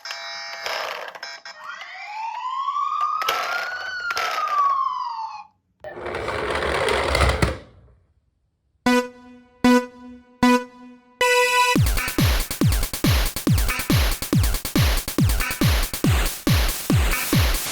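A toy emergency vehicle's electronic siren wails, rising and falling once in pitch over about four seconds, followed by a short noisy whoosh and three short tones. From about twelve seconds in, electronic dance music with a steady beat of about two strokes a second takes over.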